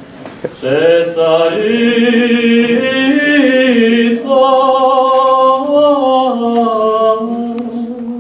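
A small group of voices singing a cappella in harmony, starting about a second in and holding long, wavering notes, with a short breath break near the middle.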